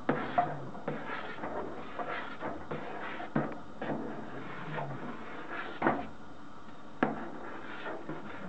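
A spoon stirring a hot soap, borax and soda-crystal solution in a stainless steel stockpot, knocking irregularly against the pot's sides about once a second, over a steady hiss.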